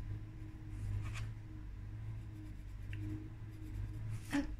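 Colored pencil scratching on paper in short shading strokes, over a steady low hum.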